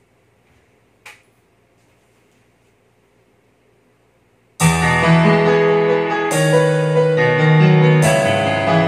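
Near silence with a single short click about a second in. About four and a half seconds in, the TJ Media TKR-305P karaoke player's backing track starts suddenly and loudly: a piano-led intro with a new chord struck about every two seconds.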